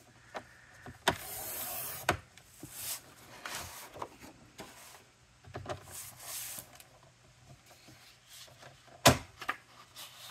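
Paper trimmer cutting cardstock: the blade is drawn along the rail with a hiss about a second in, among sharp clicks and knocks of the trimmer and rustling paper, with the loudest knock about nine seconds in.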